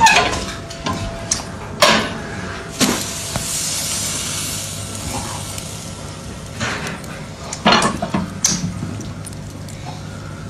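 A snowball set onto glowing charcoal: a few sharp knocks as it is put down, then a hissing sizzle for a few seconds, followed by scattered clicks and crackles.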